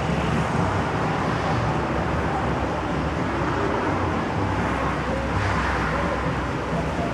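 Steady road traffic noise from passing cars, with a low rumble.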